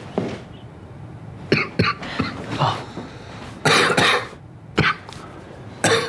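A sick man lying in bed coughing: a run of short coughs, the longest and loudest about four seconds in, with more coughs near the end.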